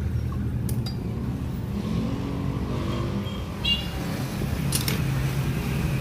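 Steady low rumble of nearby vehicle traffic, with a few small metallic clicks and one brief light metal ring about halfway through, from hands handling small contact-point ignition parts.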